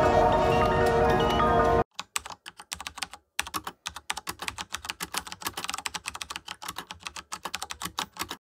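Music that cuts off abruptly about two seconds in, followed by rapid, irregular computer-keyboard typing: a quick run of key clicks for about six seconds that stops suddenly.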